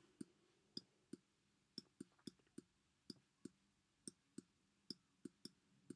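Faint, irregular clicks of a stylus tapping and lifting on a tablet as a word is handwritten, about two or three a second.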